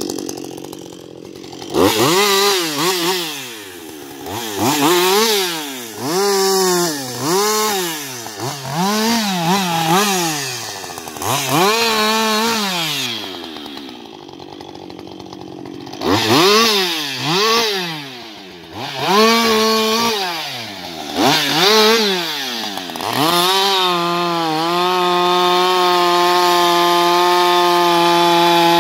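Husqvarna 560XP two-stroke chainsaw revved in repeated short bursts, the engine climbing and dropping back about once a second, with a lull of a couple of seconds in the middle. Near the end it is held at a steady high rev.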